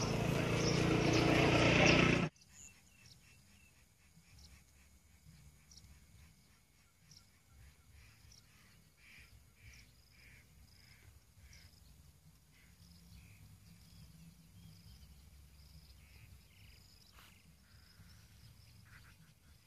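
A loud wash of outdoor noise that cuts off sharply about two seconds in, then faint, short bird chirps repeating over quiet open-field ambience.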